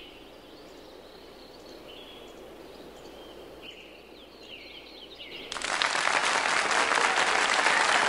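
Birds chirping faintly over quiet outdoor background. About five and a half seconds in, loud applause from an audience starts abruptly and continues.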